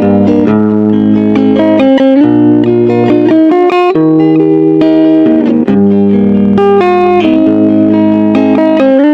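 Background music: a plucked guitar melody with quickly changing notes over held bass notes.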